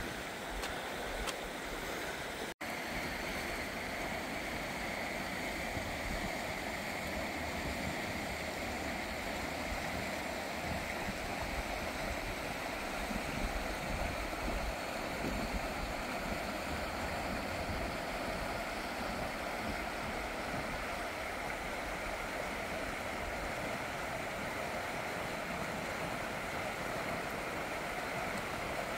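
Steady rush of a river running over rocky rapids, an even wash of water. The sound drops out for an instant about two and a half seconds in.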